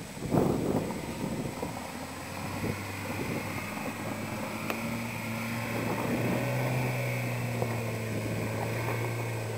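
An engine running with a steady low hum, its note growing stronger about six seconds in, after a loud rattling clatter right at the start.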